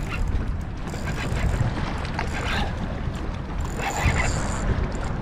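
Wind rumbling on the microphone over water sloshing around a kayak, with scattered small splashes and knocks.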